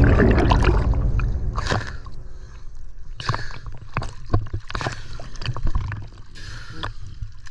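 Background music ending about two seconds in, then water sloshing and splashing around a freediver at the surface, with irregular small splashes.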